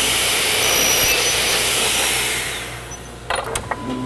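Electric chop saw running as it cuts through a wooden board, its motor winding down about two and a half seconds in. A few sharp knocks follow near the end.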